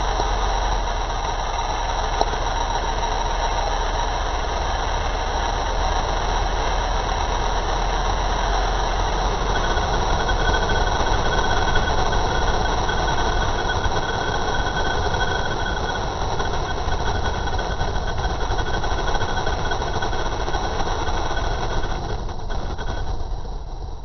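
A 1960s Chevrolet C10 pickup under way: steady engine and exhaust drone mixed with wind and road rush, picked up outside the cab. It drops away near the end.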